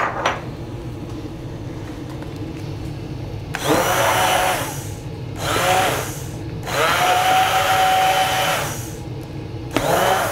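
Hand-held immersion blender puréeing a creamy asparagus soup with soft potato pieces in a stainless steel pot. It is switched on in four bursts, starting about three and a half seconds in; the longest lasts about two seconds, and the motor whines up to speed at each start.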